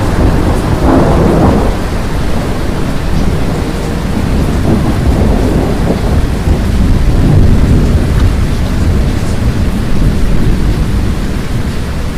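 Thunderstorm: low rolling thunder rumbling continuously over steady rain, with a louder swell of thunder in the first two seconds.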